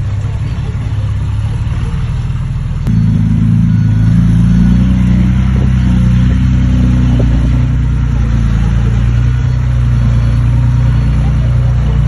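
Heavy diesel engine of earthmoving machinery running. About three seconds in it suddenly gets louder, and then it works under load with its note wavering up and down.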